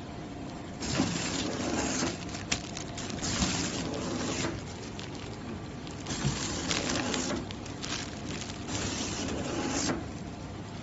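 Thin clear plastic film of a sealed pillow-pack bag crinkling in irregular bursts as it is handled, over the steady running of a flow-wrap packing machine.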